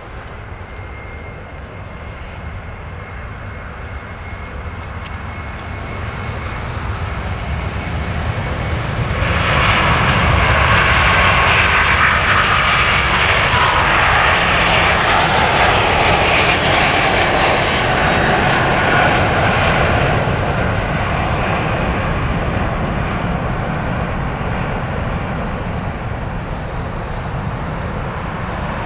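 Jet airliner's engines passing the airport: the noise grows over several seconds, is loudest for about ten seconds in the middle, then slowly fades as the aircraft moves away.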